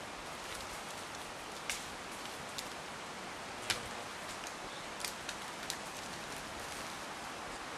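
Steady hiss of forest background noise, with about half a dozen sharp ticks scattered through it; the loudest comes near the middle.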